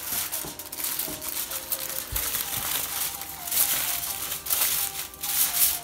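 Aluminium foil crinkling and crackling in irregular bursts as it is pressed and crimped tightly around the rim of a casserole dish.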